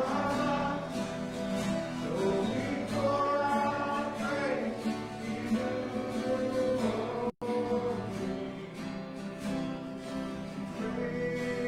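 Worship song sung by several voices together over strummed acoustic guitar, with slow, held melody notes. The sound drops out completely for an instant about seven seconds in.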